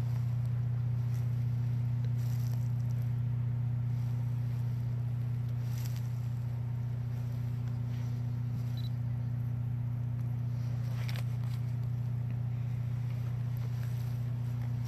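A steady low hum that holds level throughout, with a few faint clicks.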